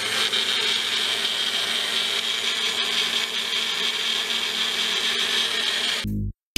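Magic Bullet personal blender running steadily as it blends a cup of pancake batter, a high, whirring drone that cuts off abruptly about six seconds in.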